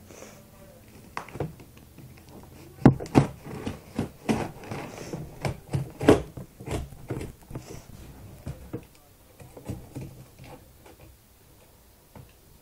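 A cardboard shipping box being opened and handled: an irregular run of knocks, taps and scraping, loudest around three and six seconds in.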